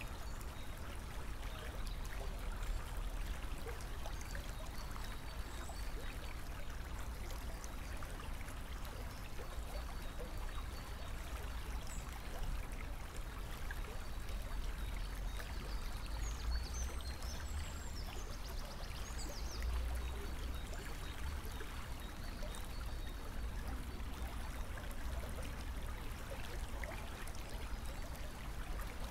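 Steady rushing outdoor noise with a low rumble, and a few faint high chirps in the middle.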